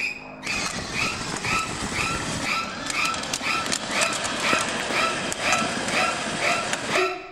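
Electronic siren on a battery-powered ride-on toy jeep, chirping about twice a second over a steady rushing noise, with a few clicks.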